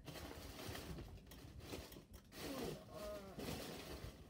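Faint rustling and handling of plastic bags and containers of foam beads, with a brief faint vocal sound about two and a half seconds in.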